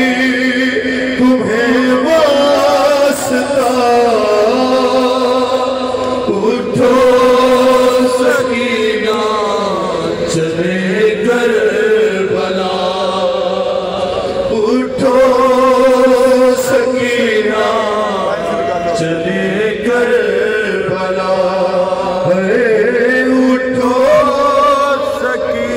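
A man chanting a noha, an Urdu Shia lament, into a microphone in long melodic phrases with short breaks between them.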